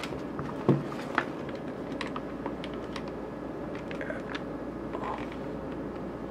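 Desk handling of cables while a USB cable is plugged into a USB switch box: scattered light clicks and plastic taps, with a louder knock just under a second in.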